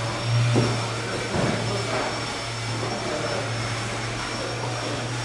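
Electric blower fan keeping an inflatable costume inflated, running steadily: a constant low hum over a rush of air, with a couple of soft knocks in the first second and a half.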